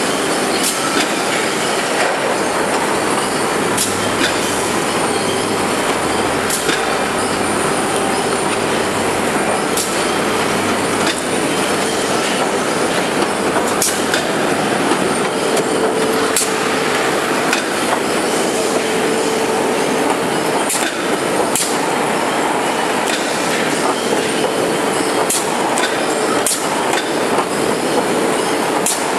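Veneer composer (core veneer jointer) and surrounding plywood-mill machinery running: a loud, dense mechanical din with sharp clicks every second or two, and a faint steady hum that comes and goes in the second half.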